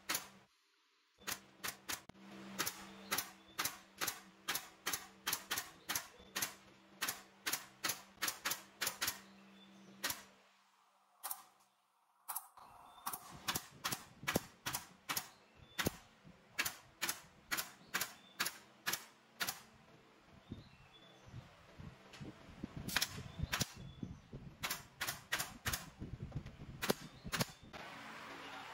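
Pneumatic nail gun driving nails into wooden chair slats in quick succession, a sharp crack about every half second with short pauses between runs. A low steady hum runs under the nailing and stops about ten seconds in.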